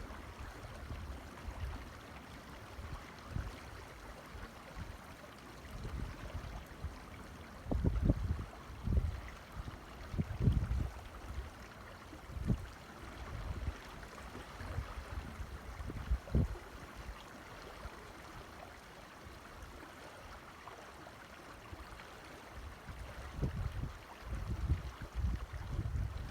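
Creek water running with a steady rush, with irregular low rumbles of wind buffeting the microphone, strongest around eight to ten seconds in and again near the end.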